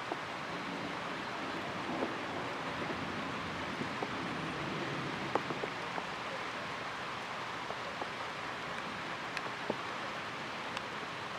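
Steady rain falling, with scattered sharp ticks of individual drops striking close by, heard through a towel draped over the camera.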